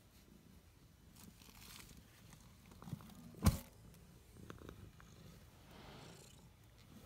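Domestic tabby cat purring right against the microphone, a steady low rumble, with rustling of fur. A loud knock hits the microphone about three and a half seconds in, with a smaller one just before it.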